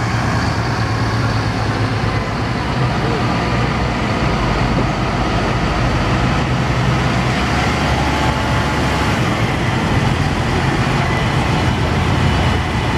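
Massey Ferguson tractors' diesel engines running steadily as the tractors drive past close by, one towing a ring roller and the next pulling a feed wagon.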